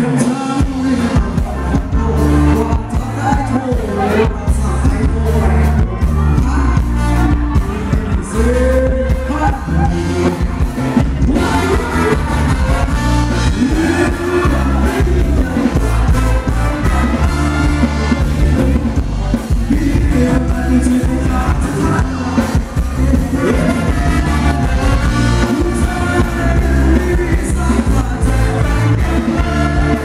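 Live band playing Thai ramwong dance music, with a singer over a steady bass beat.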